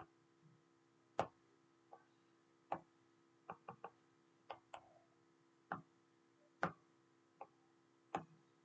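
About a dozen short, sharp taps of a stylus on a tablet screen, irregularly spaced, some in quick runs of two or three, over a faint steady hum.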